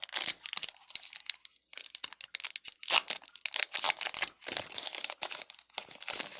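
Foil wrapper of a Pokémon mini booster pack crinkling and tearing as it is opened by hand, in a dense run of irregular crackles.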